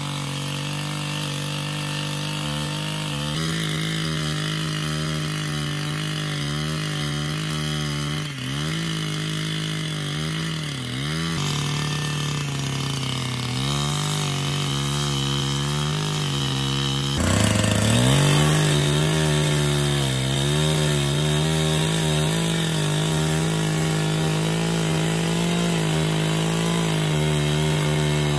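A small petrol engine running steadily at high speed. Its speed dips briefly a few times, then surges and gets louder about seventeen seconds in.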